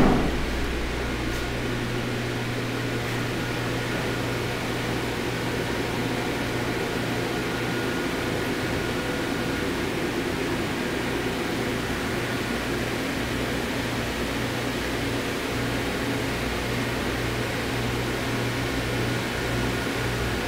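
Steady whir of cooling fans and air handling in a running FM transmitter room, with a constant low electrical hum underneath and a faint thin high whine.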